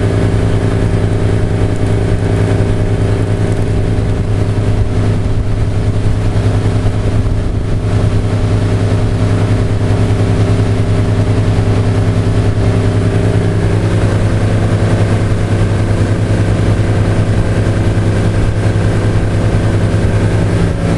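Motorboat engine running steadily at cruising speed, a constant low hum, under a rush of water and wind as the hull planes.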